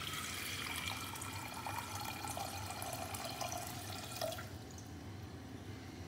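Water poured from a glass jug into an empty stainless steel pressure cooker: a steady splashing stream that stops about four seconds in.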